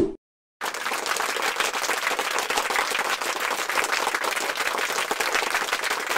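Crowd applause, a dense even clapping that starts about half a second in, after a short low thud and a brief gap.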